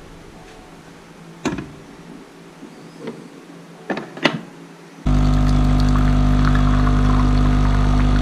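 A few clicks and knocks as a cup and capsule are set into a capsule coffee machine, then about five seconds in its pump starts abruptly with a loud, steady buzzing hum as it brews coffee into the cup.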